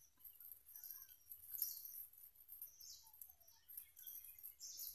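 Near silence outdoors with a few faint, short bird chirps and a faint whisper-like hiss.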